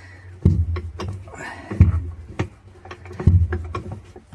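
Bottle jack being hand-pumped: three heavy thumps about a second and a half apart with sharp clicks in between, as the jack presses a washer tub off its seized shaft.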